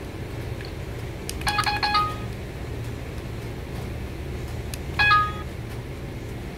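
Electronic beep tones from a children's sound book: a quick run of four or five short beeps about one and a half seconds in, ending on a slightly longer tone, and a single short beep about five seconds in, over a low steady hum.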